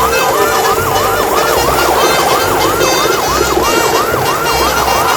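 A fast yelping siren, its pitch sweeping down and back up about three times a second, with low pulses underneath.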